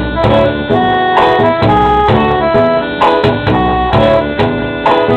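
Instrumental backing music between sung lines: keyboard notes and a bass line over a steady drum beat.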